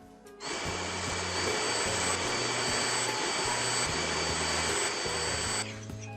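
ONSON cordless stick vacuum running: a steady rushing air noise with a high whine, starting abruptly about half a second in and cutting off suddenly about five seconds later.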